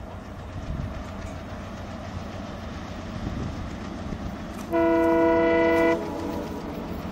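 Diesel locomotive hauling a passenger train, its engine rumbling steadily as it approaches, then sounding one horn blast of just over a second, about five seconds in.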